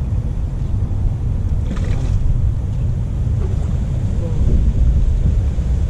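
Strong wind buffeting the microphone, a dense low rumble that never lets up, with a brief hiss about two seconds in.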